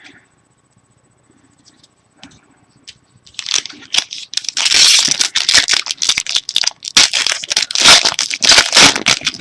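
Foil trading-card pack wrapper torn open and crumpled, a loud run of crinkling and tearing that starts about three seconds in and keeps going.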